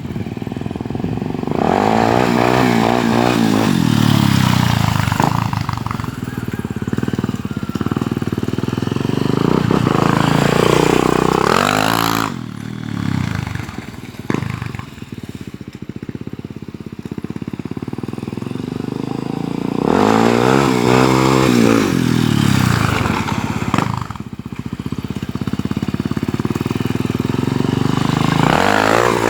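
Honda XR250 Tornado's single-cylinder four-stroke engine revving hard and falling back about four times, pitch climbing and dropping with each throttle surge, running lower in between.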